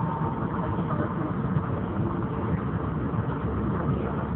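Steady road traffic noise: vehicle engines running in slow traffic.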